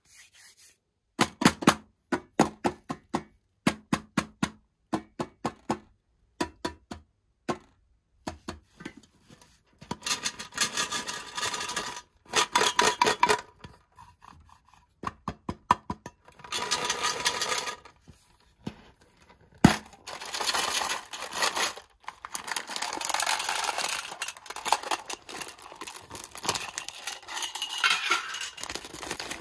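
Fingertips tapping one at a time on the lids of round metal candy tins, then fast drumming and scratching on a tin lid. After a sharp knock about twenty seconds in, a plastic candy bag crinkles as it is handled.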